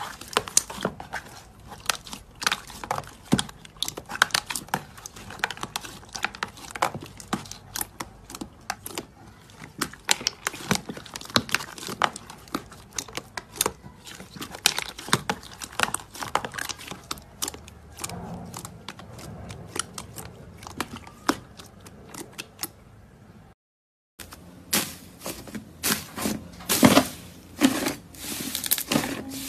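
Hands squeezing, poking and stretching soft green slime in a plastic tub: a dense run of small sticky pops and crackles. After a brief break near the end, a pink glitter slime is pressed flat by hand, with louder pops.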